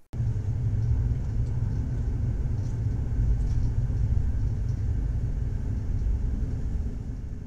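Low, steady rumble of a moving commuter train heard from on board. It starts abruptly and begins to fade near the end.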